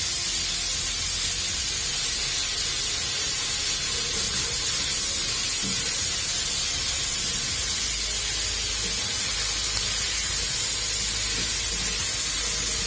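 Cubed meat sizzling steadily as it sears in a hot pot.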